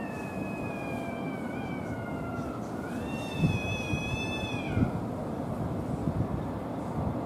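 Rival stray tomcats yowling in a standoff over a female: two long drawn-out yowls, the first slowly falling in pitch, the second higher and stronger, dropping off about five seconds in.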